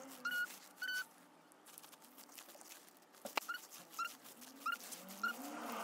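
A small animal making short, high chirping calls, about two a second, with a pause in the middle of the series. There is a single sharp tap a little past halfway, and some softer, lower calls that rise and fall near the end.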